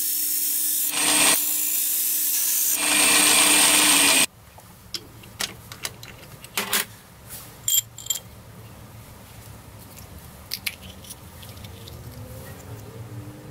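Drill press running while its cutter grinds through an abrasive angle-grinder disc: a harsh grinding hiss over the motor's steady hum, surging about a second in and again near three seconds, then stopping abruptly about four seconds in. After that, quiet handling: metallic clicks of a chuck key turning in the drill chuck, and small taps.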